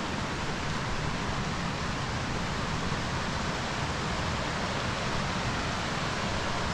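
A steady, even rushing noise that holds at one level throughout, with no distinct events in it.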